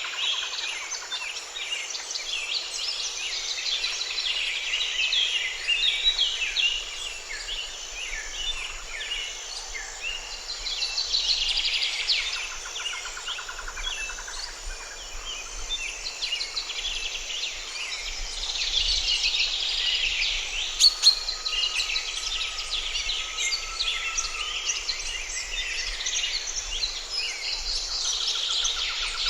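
Many birds singing and chirping at once in a dense forest chorus. A sharp click comes about two-thirds of the way through.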